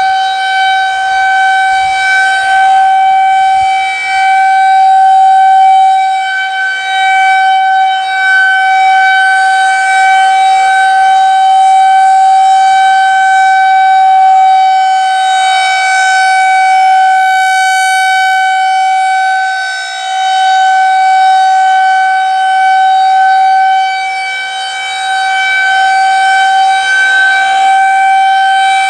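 Federal Signal 2001-130 AC-powered rotating outdoor warning siren sounding a steady, unwavering tone. The loudness swells and fades as the horn turns toward and away.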